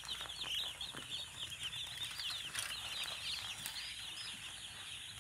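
Hundreds of day-old chicks peeping all at once: a dense, continuous chorus of short, high-pitched chirps.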